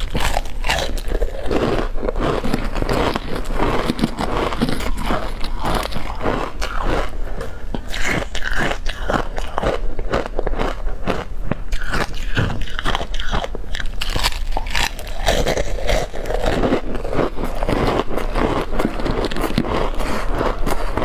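Ice chips coated in powdered milk being bitten and chewed, a dense, continuous run of crisp cracks and crunches.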